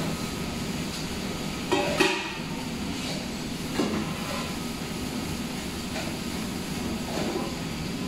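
Stainless steel pots clanking against a stainless steel counter, a few separate metal knocks with the loudest pair about two seconds in, over a steady rush of water spray and galley machinery noise.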